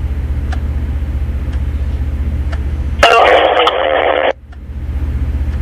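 Two-way radio net over a steady low hum with a fast, even pulse. About three seconds in, a loud, muffled radio transmission keys in and cuts off abruptly after just over a second, with a short drop in the hum afterward.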